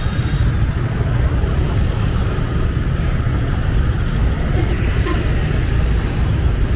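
Busy city street at night: a steady wash of passing traffic with faint voices in the background.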